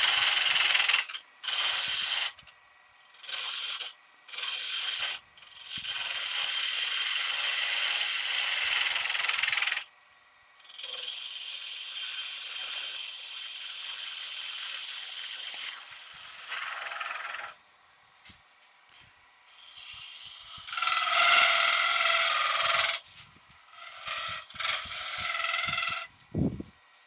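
A turning tool cutting into spinning wood on a lathe, a rough hissing scrape that comes and goes in bursts of a second to several seconds as the tool is pressed in and lifted off. The piece is slightly out of balance, with the lathe slowed down to suit. A brief low thump comes near the end.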